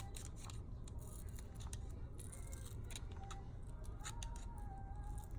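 Faint scraping and small clicks of a metal pick prying a glued-in phone battery loose, over a low steady hum.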